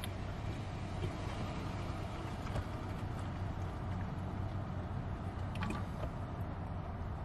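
Steady low drone of a car's engine and road noise heard inside the cabin while driving, with a faint click about five and a half seconds in.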